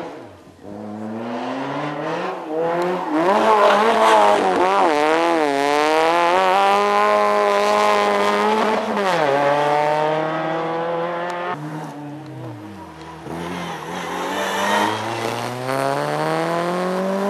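Two rally cars driven hard through a tarmac corner one after the other. Their engines rev high, and the pitch climbs and drops with throttle and gear changes. The second car's engine note climbs steadily near the end.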